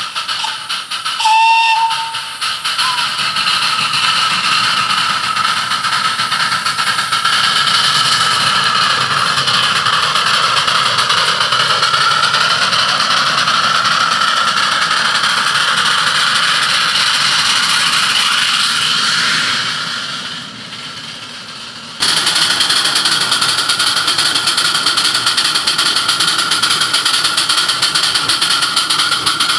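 Miniature live-steam locomotive gives a short toot on its steam whistle about a second and a half in. A loud, steady hiss runs on under it. The hiss fades for a moment about two-thirds through, then cuts back in abruptly.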